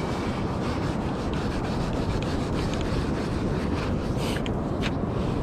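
Long-handled metal sand scoop being pushed and scraped into beach sand, digging out a detector target. It makes a steady gritty scraping with scattered sharp ticks.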